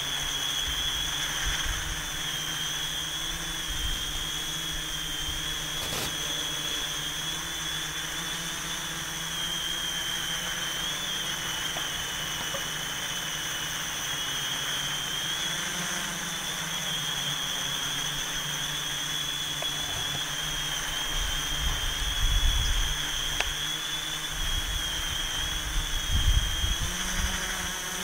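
WOV Y6 500 coaxial Y6 multirotor (six electric motors and propellers) in flight, giving a steady high whine that wavers slightly in pitch as the throttle changes. Wind rumbles on the microphone in a few gusts near the end.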